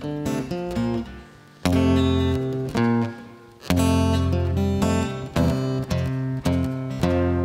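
Solo acoustic guitar, plucked notes and strummed chords each left to ring out, with two short pauses before chords are struck again.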